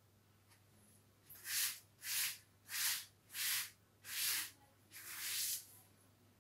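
Blackboard duster wiping chalk off a chalkboard in six back-and-forth strokes, a hiss with each stroke about two-thirds of a second apart, the last stroke longer.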